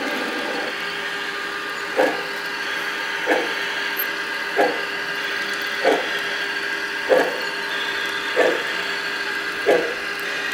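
Sound unit of a garden-scale model steam locomotive chuffing slowly as the train crawls along: short, evenly spaced puffs about one every 1.3 seconds over a steady hum.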